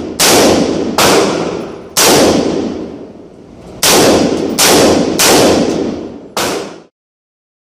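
AR-15 rifle fired in semi-automatic single shots inside an indoor range: seven shots, about one a second with a longer pause midway, each followed by a long echoing ring-out. The sound cuts off suddenly near the end.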